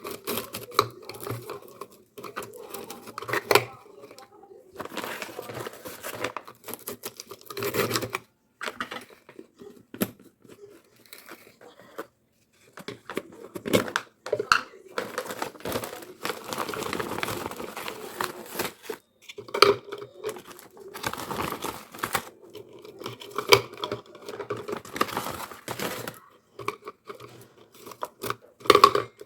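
Plastic packaging being handled, crinkled and torn open by hand, in irregular bursts with short pauses.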